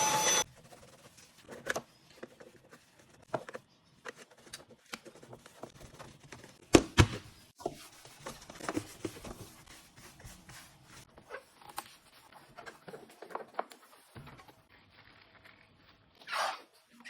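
A coffee machine's steady running hum stops half a second in. Then come scattered light clicks and knocks of machine parts being handled during cleaning, with one louder knock about seven seconds in and a short hiss near the end.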